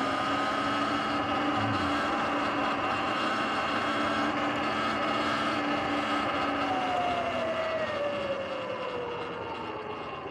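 Sur-Ron electric dirt bike running at a steady speed: a high motor and drivetrain whine over tyre and wind noise. From about two thirds of the way in, the whine falls in pitch and the sound gets quieter as the bike slows down.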